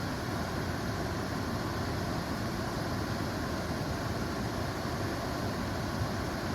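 Waterfall: water falling and rushing in a steady, low-heavy roar that does not change.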